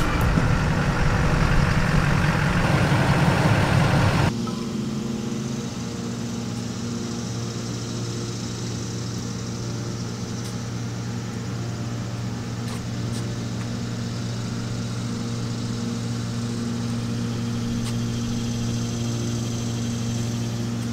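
Pickup truck engine running as it pulls in and parks, louder for about the first four seconds. The sound then drops suddenly to a steady low hum.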